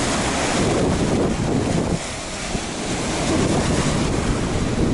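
Black Sea waves breaking on the shore, with wind buffeting the microphone; a steady rushing noise that eases slightly about two seconds in.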